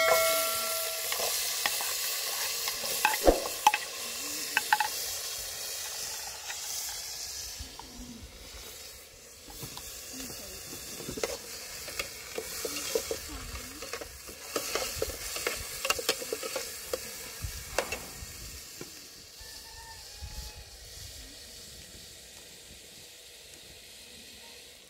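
Food frying in hot oil in a pan. The sizzle starts loud and slowly dies down, while a utensil stirs, knocking and scraping against the pan now and then.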